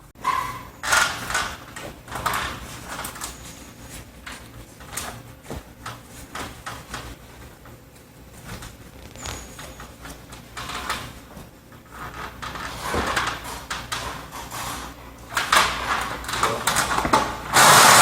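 Irregular knocks, clicks and scrapes of parts and tools being handled during a rooftop tent installation. Near the end comes a louder harsh rasping noise lasting about two seconds.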